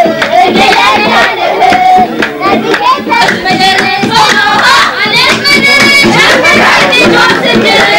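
A crowd singing together and clapping along in a steady rhythm.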